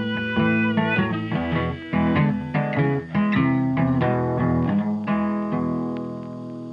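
Background music of plucked guitar notes and chords, fading out near the end.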